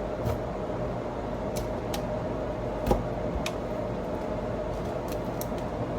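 A steady machine hum, with scattered light clicks and a single knock about three seconds in.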